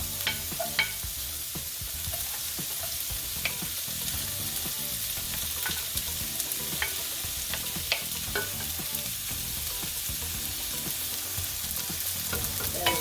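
Sliced carrots frying in a little oil in a pan, with a steady sizzle. Scattered sharp clicks are heard as a utensil stirs and tosses them against the pan.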